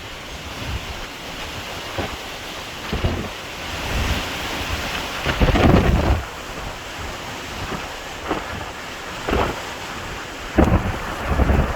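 Hurricane Nicole's wind gusting over a steady hiss of wind and rain, the gusts hitting the microphone as loud low buffeting several times, strongest about halfway through.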